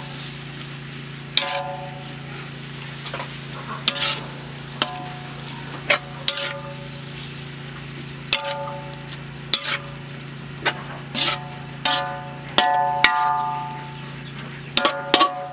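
A metal spoon-spatula scraping and knocking against a metal wok while stir-frying glass noodles with pork, about once a second, many knocks leaving the wok ringing briefly, over a light frying sizzle.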